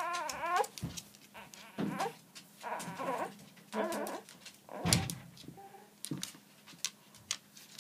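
Infant's soft whimpers and short fussy whines: a wavering cry trails off in the first half-second, followed by scattered brief whimpers.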